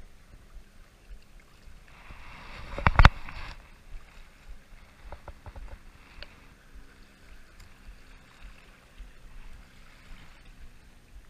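Small waves lapping at the shoreline under light wind. About three seconds in, a rushing swell peaks in a sharp knock, the loudest sound, followed a little later by a few faint clicks.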